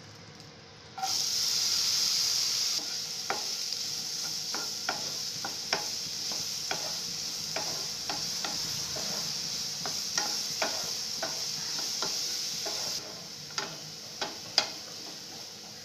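Diced apple sizzling as it hits hot melted butter in a nonstick frying pan, the sizzle starting suddenly about a second in and easing near the end. Through the sizzle a utensil stirring the apple clicks against the pan, about once or twice a second.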